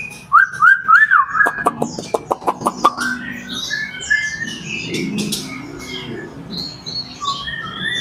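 Caged songbirds singing: four clear whistled notes that slide up and down, then a quick run of sharp clicking notes, about five a second, then many high chirps overlapping from several birds.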